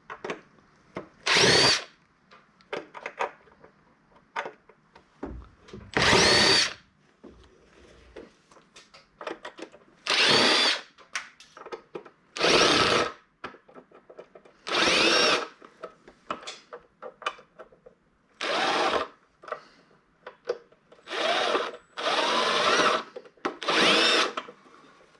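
Power drill/driver run in about nine short bursts of roughly a second each, its motor whine rising at the start of each run, as screws are backed out of a plastic charging dock during a teardown. Small clicks and rattles of plastic parts and screws come between the runs.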